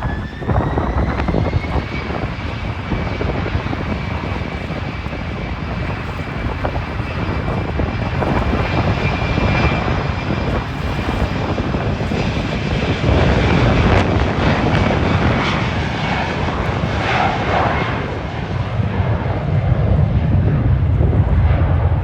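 Jet airliner engines running loud, with a high whine that rises over the first couple of seconds and then holds steady, over a deep rumble.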